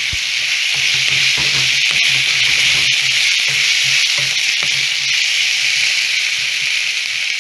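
Chopped onions, garlic and ginger sizzling in hot oil in a nonstick kadai as a steady high hiss, stirred with a wooden spatula that gives a few light scrapes and taps.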